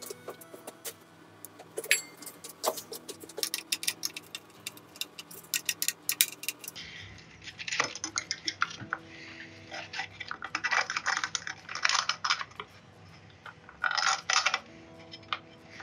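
Metal parts being handled and fitted by hand: a run of quick small metallic clicks, then, about halfway through, bursts of scraping and rattling as the running light is worked into its welded bracket.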